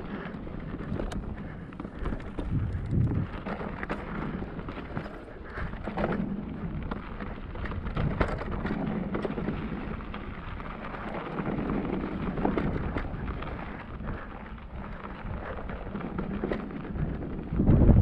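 Cube Stereo Hybrid 160 e-mountain bike riding down a rough trail: tyres rolling over gravel and rocks, with frequent small rattles and knocks from the bike and wind rumble on the microphone. A louder low thump comes near the end.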